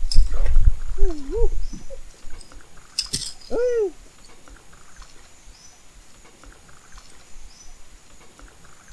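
Rainforest river ambience: a steady high insect drone with repeated short high chirps. In the first four seconds there are low rumbles and a sharp knock, and two short calls that rise and fall in pitch.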